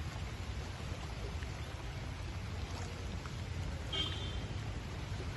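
Floodwater flowing steadily, a continuous rushing noise with a heavy low rumble. A brief high chirp sounds about four seconds in.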